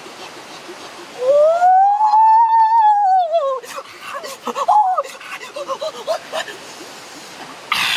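A boy's long exclaimed 'ooooh' that rises and then falls in pitch, followed by a few short vocal sounds, over a steady background hiss.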